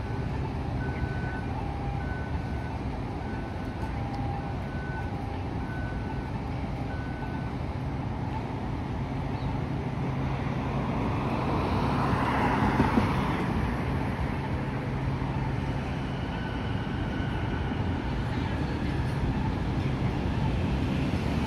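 Street traffic at a light-rail stop: a steady low hum, a high beep repeating about once a second for the first seven seconds or so, and a vehicle passing by about twelve seconds in.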